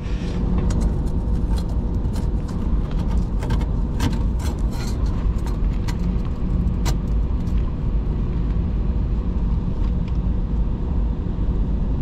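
Light metallic clicks and taps as a pipe strainer and its gasket are handled and pushed into place, mostly in the first several seconds. Under them runs a steady low mechanical rumble with a faint hum.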